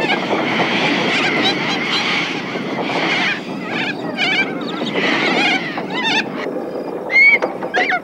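A flock of little corellas screeching in harsh repeated calls, one loudest near the end, over the steady noise of a metal windmill wheel turning in the wind.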